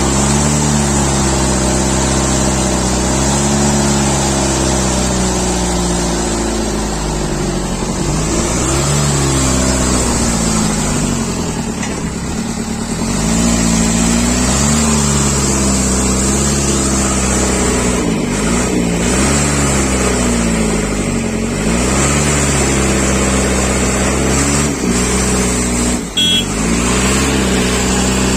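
JCB backhoe's diesel engine working under load, its speed rising and falling over and over as it pushes. There is a brief sharp clank near the end.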